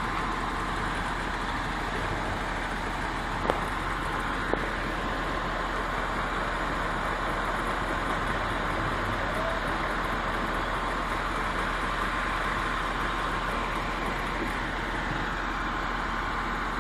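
Engine of a heavy vehicle running steadily, with a faint steady whine and two short clicks about a second apart a few seconds in.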